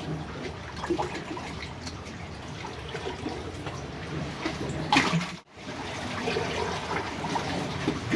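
Seawater sloshing and trickling among breakwater blocks and rocks, with small irregular splashes and a louder splash about five seconds in, followed by a moment's dropout.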